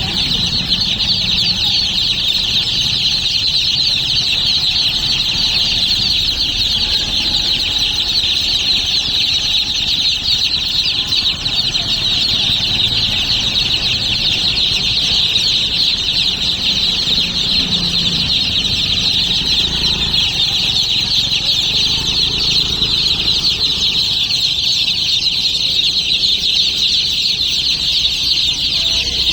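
Many baby chicks peeping together in a dense, continuous high-pitched chorus.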